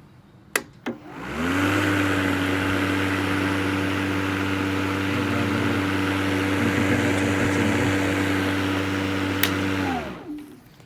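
Ozito twin-18V brushless cordless lawnmower started with two clicks of its switch. Its motor and blade spin up with a rising whine, then run at a steady whirring hum for about eight seconds. After a click near the end they wind down with a falling whine as it is switched off.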